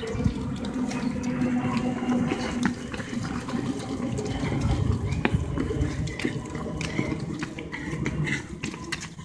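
Runners' footfalls on a brick path as they pass close by, irregular sharp steps over a steady rushing noise.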